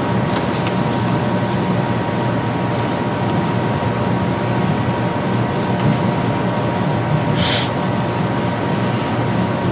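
Steady low room rumble with a few faint constant hum tones, and a brief rustle about seven and a half seconds in.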